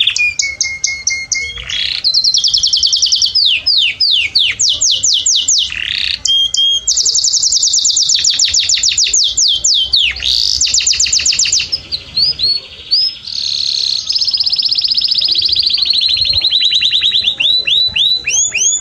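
Domestic canary singing a loud, continuous song of rapid trills: runs of quickly repeated falling notes that switch to a new pattern every second or two, with a steadier rolling trill in the second half.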